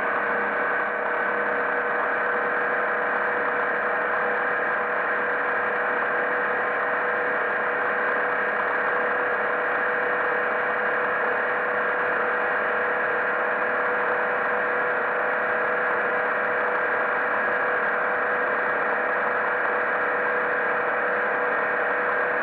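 The MerCruiser 140 hp 3.0-litre four-cylinder sterndrive engine of a 1978 Draco 20 DC runs at a steady pitch while the boat travels at speed, mixed with the rushing of the hull and wake through the water.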